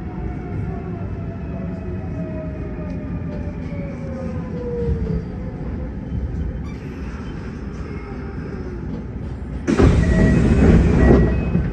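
Kintetsu 1252-series electric train's motor whine falling steadily in pitch over rumbling running noise as the train slows. A sudden loud rush of hissing noise comes in near the end.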